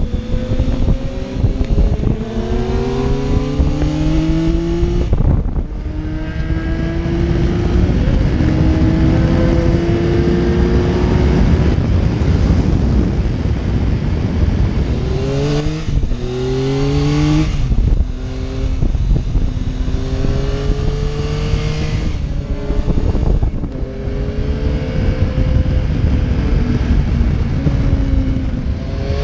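Yamaha Tracer 9's inline-three engine accelerating hard, its note climbing in pitch through the gears, dropping briefly at each shift several times, under steady wind rush on the helmet-mounted camera.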